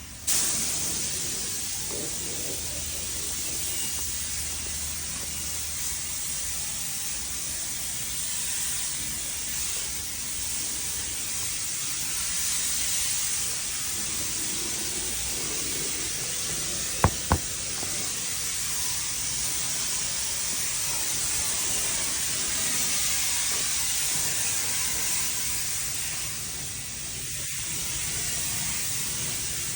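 Spray gun steadily hissing as it sprays Rust Grip coating. Two sharp clicks come in quick succession about two-thirds of the way through.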